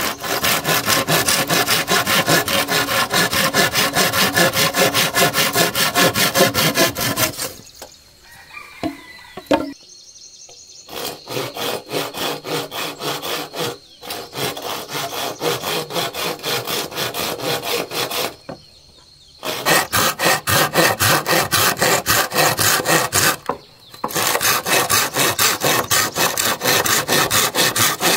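Hand saw cutting through wood in quick, even back-and-forth strokes, stopping briefly a few times before starting again.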